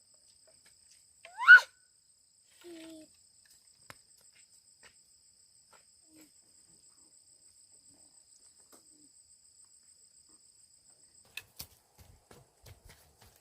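Insects chirping as a steady high buzz that stops about eleven seconds in. A single short rising squeal about a second and a half in is the loudest sound. A few light thumps follow near the end.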